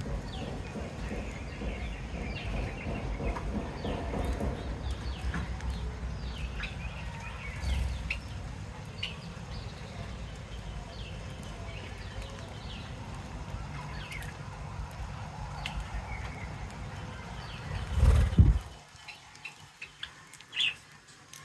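Small pet birds chirping in many quick, short calls over a steady low rumble. A loud thump comes near the end, after which the rumble drops away and only a few chirps remain.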